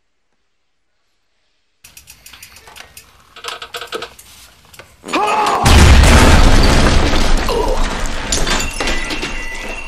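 Rapid quiet clicks and taps, then about five seconds in a sudden, very loud blast with a deep rumble and crashing that dies away slowly over several seconds. A repeating rising electronic tone starts near the end.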